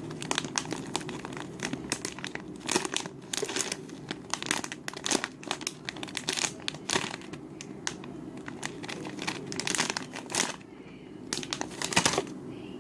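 Plastic packaging bag of a squishy toy crinkling as it is handled, a string of short, irregular crackles.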